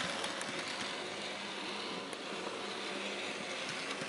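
Hornby LNER W1 'Hush Hush' model locomotive running along the track: a steady, faint whirr of its motor and wheels with a low hum, and a few small clicks near the start.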